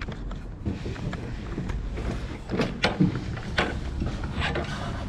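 A handful of sharp knocks and clatters, mostly in the second half, over a steady low rumble.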